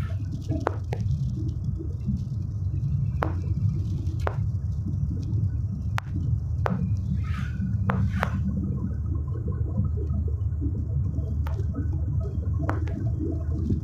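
Steady low rumble of a car's engine and tyres on the road, heard from inside the cabin while driving, with occasional short sharp clicks.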